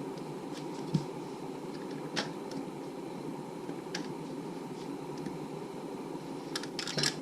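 Steady low hum of room noise, with a few faint clicks and a quick cluster of sharper clicks near the end.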